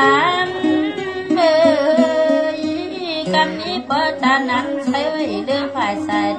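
Kengtung-style kam soen folk singing: a drawn-out, wordless vocal line sliding and bending in pitch, over instrumental accompaniment holding steady notes.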